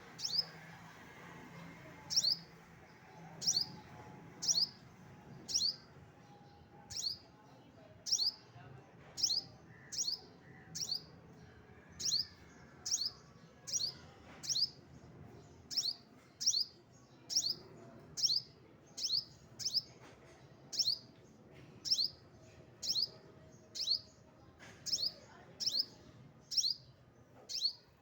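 A small bird repeating a single sharp, high chirp that slides downward in pitch, about once a second, at a nest with young.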